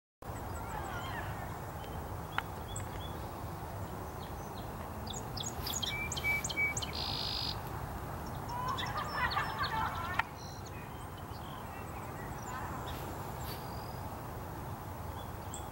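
Birds calling and chirping over a steady low background rumble, the calls busiest and loudest through the middle of the stretch.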